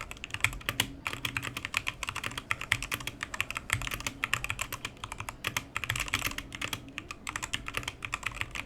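Fast typing on a Redragon K616 Fizz Pro 60% mechanical keyboard: a rapid, uneven run of key clacks, many a second, without pause.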